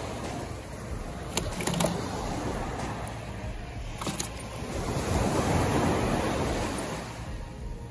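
Surf washing on the shore, with a wave swelling louder about five seconds in. A few sharp clicks come in the first half.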